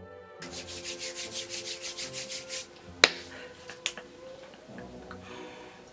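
A rhythmic scratching, about five strokes a second for two seconds, over faint steady background music, followed by a sharp click and then a softer second click.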